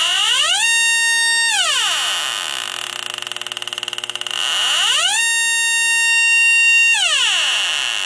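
Yokogawa H10B heated-diode refrigerant leak detector sounding its alarm twice. Each time an electronic tone glides up, holds, and glides back down, over a steady high whine, with fast ticking between the two alarms. The probe is picking up R-22 refrigerant escaping from a leak at the coil's tube bends.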